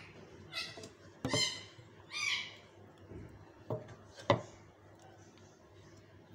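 Three short, high bird squawks in the first two and a half seconds, then a couple of sharp knocks, the loudest about four seconds in.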